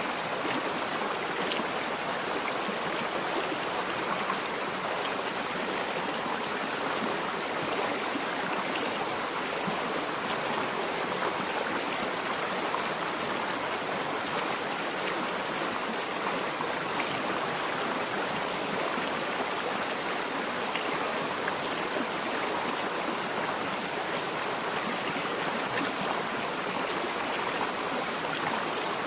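River flowing over rocks: a steady rush and babble of running water.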